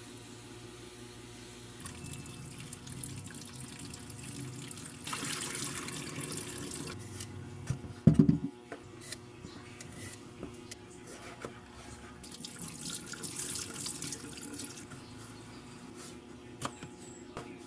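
Kitchen tap running into a sink twice in short spells, with one loud clunk about eight seconds in. Soft piano music plays underneath.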